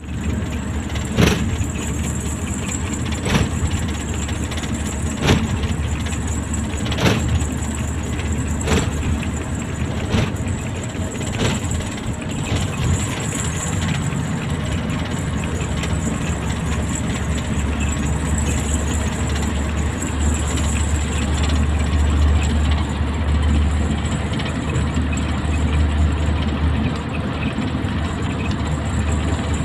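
Hino diesel engine running steadily under way, heard from inside the cab, with a deep low rumble that grows stronger in the second half. Sharp knocks come about every two seconds during the first dozen seconds.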